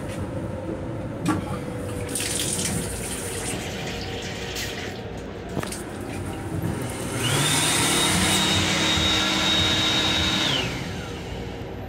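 Water running briefly from an M7 railcar's sensor faucet, then the built-in sensor hand dryer blowing for about three seconds. The dryer has a steady high motor whine that winds down as it shuts off, and it is the loudest thing heard.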